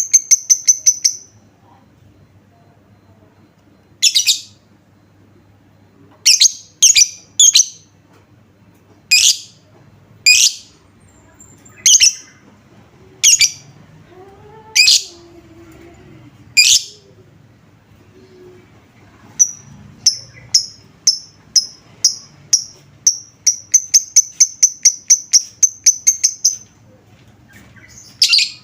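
Lovebird giving loud, sharp single chirps a second or two apart, then a fast, even run of repeated chirps, about three a second, lasting some seven seconds in the second half.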